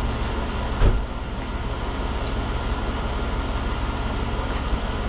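Pickup truck engine idling steadily, left running to recharge its battery after long disuse. A single short thump about a second in.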